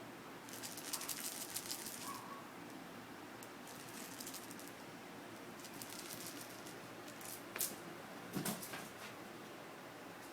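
Faint patter, rustling and small clicks of a kitten scampering and batting about at play, with two sharper knocks a little under a second apart about three quarters of the way in.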